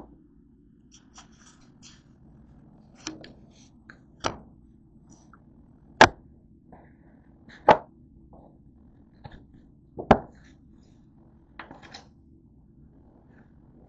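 Irregular sharp knocks and taps as a cardboard takeout box is set down and shifted on a wooden tabletop close to the microphone. The loudest three come in the middle stretch, over a faint steady low hum.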